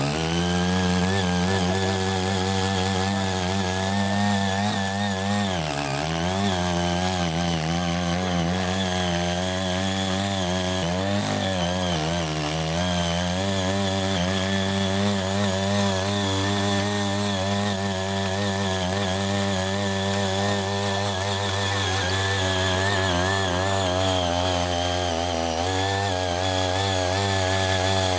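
Ching Yee mini rotary tiller's small petrol engine running hard while its rotary tines dig and weed through unworked, weed-covered ground. The engine note is steady, with its pitch sagging briefly about six seconds in and again around eleven seconds.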